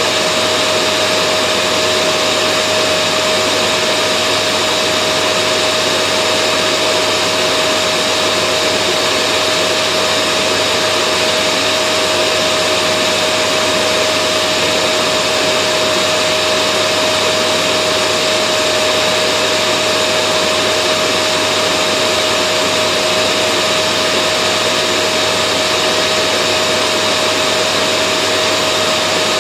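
Vacuum cleaner motor running steadily, a continuous whooshing hum with a constant whine and no change in pitch or loudness.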